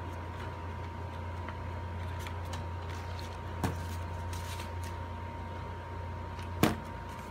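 Cardstock paper handled and pressed into place, with light rustles and two sharp knocks, one about three and a half seconds in and a louder one near the end, over a steady low hum and a faint steady whine.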